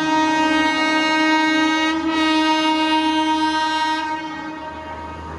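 Indian Railways WAP-4 electric locomotive horn sounding one long blast, with a slight dip about two seconds in, stopping about four and a half seconds in. After the horn stops, the quieter rumble of the approaching train goes on.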